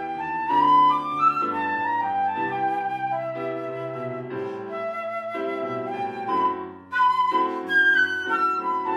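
Instrumental music: a melody of held notes over sustained chords.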